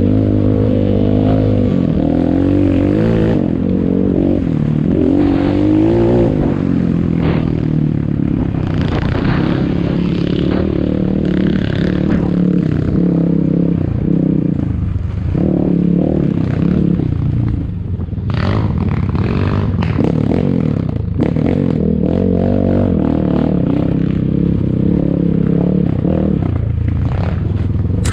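ATAKI DR 250 enduro motorcycle engine running under load off-road, its pitch rising and falling again and again as the throttle is worked, with clatter and scraping knocks from the bike over rough ground.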